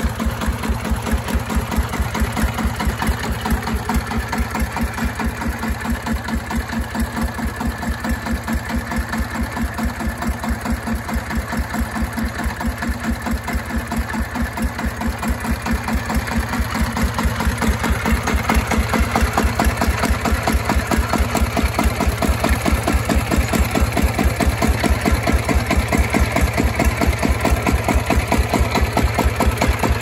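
Horizontal single-cylinder diesel engine of a small Chinese crawler tractor idling with a steady, even beat, a little louder from about halfway in.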